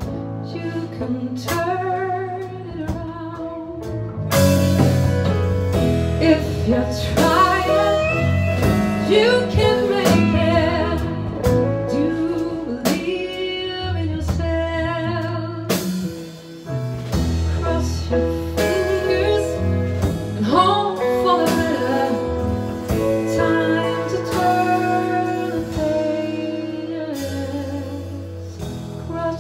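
Live band playing a waltz: a woman sings lead over keyboards, electric guitar, bass guitar and drums. The band gets louder about four seconds in with a cymbal crash, and again about halfway through.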